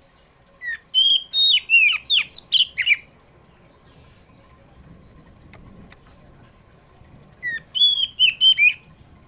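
Oriental magpie-robin (kacer poci) singing two short, loud phrases of clear whistles with sharp downward slurs: the first starts about half a second in and lasts over two seconds, the second comes near the end.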